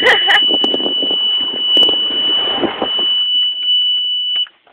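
A continuous high-pitched electronic tone, like an alarm or buzzer, held at one pitch over jostling, rattling noise. The rattling fades about three seconds in, and the tone cuts off suddenly near the end.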